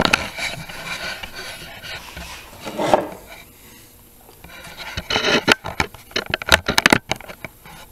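Camera handling noise: hands rubbing and knocking on the camera as it is moved and set in place, with a run of sharp clicks and knocks near the end.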